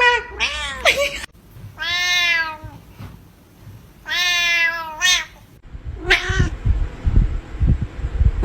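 Domestic cat meowing: a few short calls at first, then two long, drawn-out meows about two seconds apart and a brief one after. Low thumps follow near the end.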